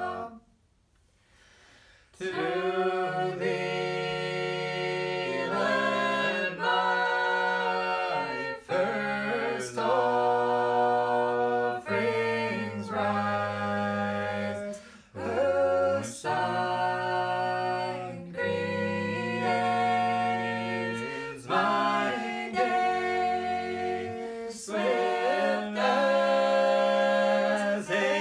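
Four unaccompanied voices, two women and two men, singing a shape-note hymn in four-part harmony. After a brief silence, the singing begins about two seconds in, moving in held chords.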